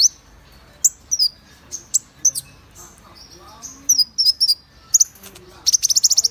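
Olive-backed sunbird (kolibri ninja, 'konin') calling with sharp, high, separate chirps, then a fast rattling trill near the end, as used for a lure recording to get caged konin singing.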